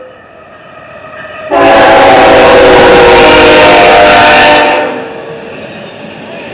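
Air horn of a CSX GE ET44AH locomotive sounding one long, very loud blast of several notes at once, starting about a second and a half in and lasting about three seconds. After it stops, the intermodal train keeps running past with a steady rumble.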